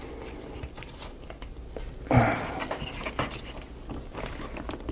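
Light clicks and taps of wooden marble-run pieces being handled and pushed together, with one louder short knock about two seconds in.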